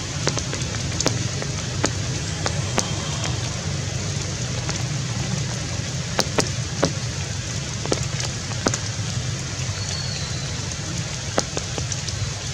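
Steady outdoor background of a low rumble and hiss, dotted with irregular sharp ticks and a couple of faint high chirps.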